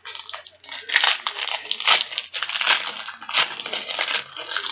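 Foil wrapper of a 2004 Bowman baseball card pack crinkling steadily as it is opened and handled, a dense crackle throughout.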